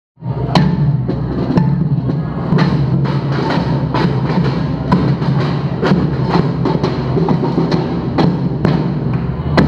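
A percussion band of snare drums and large mallet-struck bass drums playing a steady driving beat, with a strong accent about once a second. It starts abruptly right at the beginning, out of silence.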